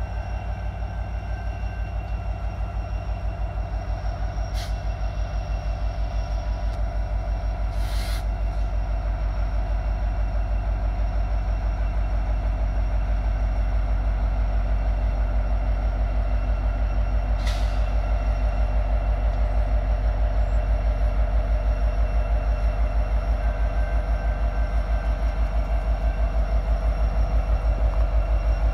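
Norfolk Southern diesel locomotives leading a loaded coal train approach at slow speed, their engines a steady, throbbing low rumble that grows gradually louder as they draw close. Three brief high-pitched sounds cut in about five, eight and seventeen seconds in.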